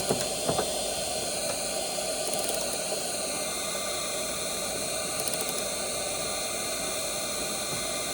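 A 1300-watt handheld induction heater running steadily, a fan-like hiss with a faint whine, as it heats a body bolt to make the threadlocker let go. A couple of light clicks come at the very start.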